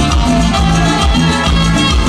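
Live band playing a chilena, with electric bass, keyboard, congas and horns over a steady dance beat.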